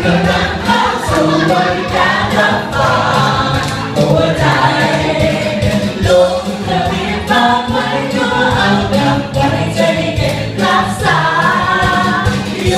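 Loud dance music with several voices singing over a steady beat.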